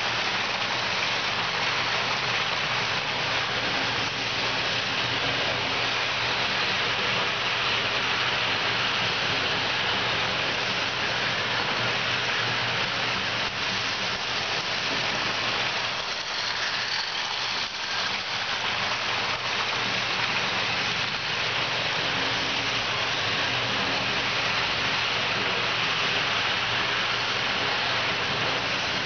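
Model electric trains running on the layout track: a steady whirring rumble of metal wheels on rail and small motors, over a steady low hum.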